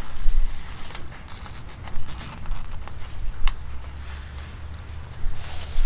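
Nylon zip tie being threaded and pulled tight around foam pipe insulation on an air-conditioner line: a short zipping rasp and a few light clicks over a low rumble.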